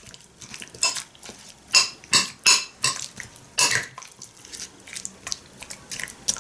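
A metal spoon stirring a kefir-dressed fruit salad in a glass bowl, clinking against the glass in irregular knocks. The clinks are loudest and most frequent between about one and four seconds in, then lighter.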